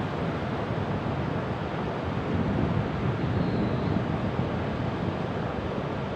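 Ocean surf washing continuously, swelling a little louder a couple of seconds in.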